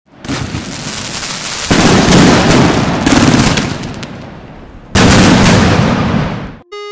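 Aerial fireworks going off: four loud bursts, each followed by a long hissing fade. A short musical tone comes in just before the end.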